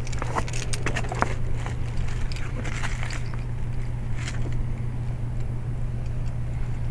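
1996 Carrier 5-ton straight-cool condensing unit running: steady hum of its Copeland scroll compressor with the whoosh of the condenser fan. Light clicks and crackles come through over the first three seconds.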